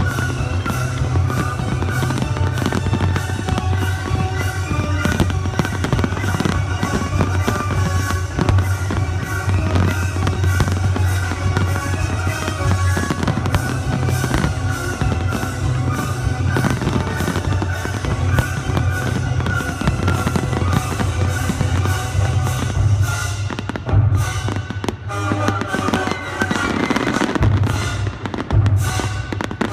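Fireworks bursting in quick, dense succession over loud music with a heavy bass line.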